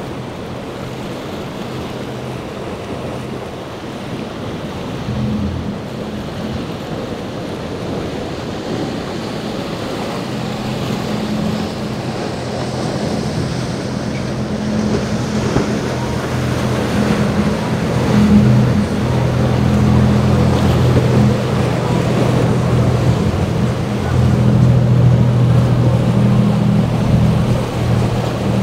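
Large motor yacht's engines running with a steady low drone that comes in about five seconds in and grows louder as the boat passes close. The drone sits over the rush of waves and hull spray and wind on the microphone.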